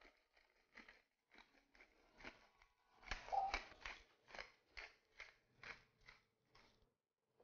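Hand-twisted pepper mill grinding peppercorns: a faint run of short crunching clicks, about two or three a second, loudest about three seconds in.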